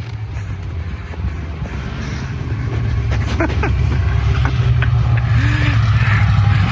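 A motor vehicle's engine running with a steady low rumble, growing steadily louder.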